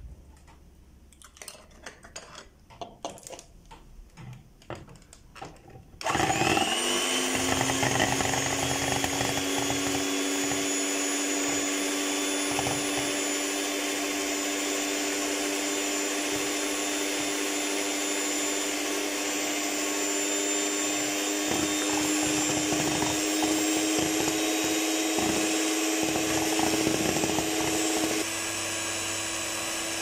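A few light taps and clicks, then about six seconds in an electric hand mixer switches on, rising quickly to speed. It then whirs steadily while its beaters whip eggs in a plastic bowl, dropping slightly in loudness near the end.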